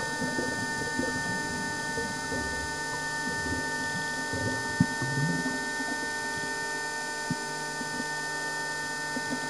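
Underwater ambience: a steady mechanical hum with several fixed whining tones, overlaid with irregular crackling and a few sharper clicks.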